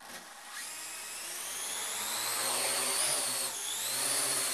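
Parrot AR.Drone quadcopter's four electric rotors spinning up from rest and lifting off: a high whine with a steady buzz that starts suddenly, rises in pitch and loudness, dips briefly about three and a half seconds in, then settles into a steady hover.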